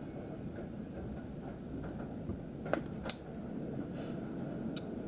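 A few sharp clicks of an automatic wire stripper's jaws being squeezed and snapping open, twice close together and once more near the end, over low steady room noise.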